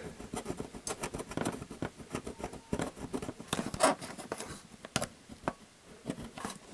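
Side cutters scraping solder mask off a printed circuit board to expose the copper traces: quick, irregular scratches and clicks.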